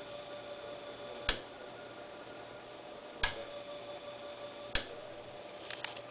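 Steady faint hum of a large electric motor run through a relay direction-control circuit, with three sharp single clicks about one and a half to two seconds apart, then a fainter double click near the end.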